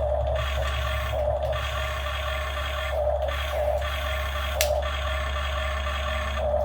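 RC model excavator's electric motors and hydraulic pump running: a steady low hum under a whine that swells and fades several times, with one sharp click about two-thirds of the way through.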